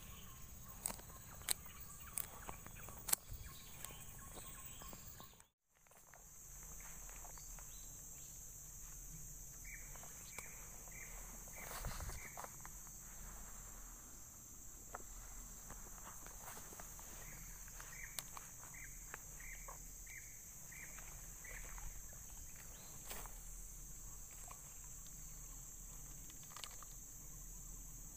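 Steady high-pitched buzzing of tropical forest insects along a creek. In the first few seconds there are a few sharp clicks and rustles of handling. The sound cuts out briefly about five seconds in, and later two runs of short chirps, about two a second, sound over the drone.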